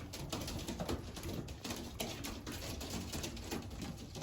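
Racing pigeons pecking grain from a feeder: a rapid, irregular patter of small clicks.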